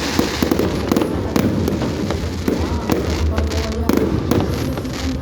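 Fireworks display: a dense, continuous run of sharp bangs and crackles from bursting shells, with people's voices in the background.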